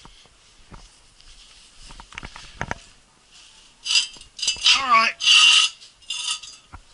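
A steel jack stand being handled on a concrete floor: a few light metal clicks, then a stretch of louder metallic clattering and scraping about four seconds in.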